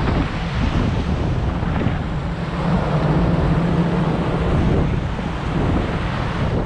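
Wind buffeting the microphone over a steady rushing and low rumbling from the icebreaker USCGC Healy's hull shoving through broken sea ice and water.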